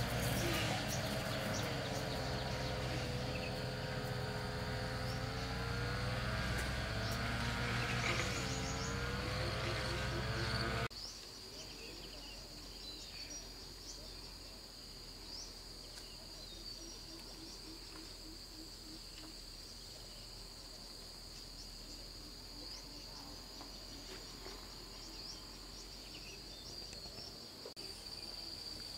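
Insects trilling in a steady high drone. Over the first eleven seconds a louder sound with wavering pitch and a low rumble lies over it, then cuts off abruptly.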